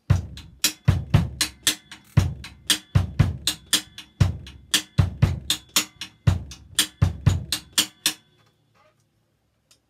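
Drum kit played in a steady 'train-time' beat: even snare strokes about four a second, some accented, over a repeating kick drum pattern of single and paired bass drum hits. It stops about eight seconds in.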